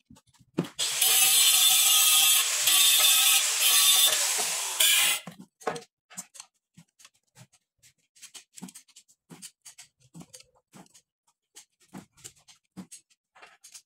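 A loud, rough mechanical noise runs for about four seconds, dipping briefly three times. It is followed by scattered light metallic clicks and knocks as a long-handled wrench works the main bearing cap bolts on a Toyota 1FZ inline-six engine block.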